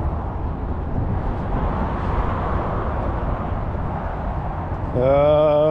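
Wind buffeting the microphone, a steady low rumbling noise. About five seconds in, a loud held pitched sound with a slight waver starts and becomes the loudest thing.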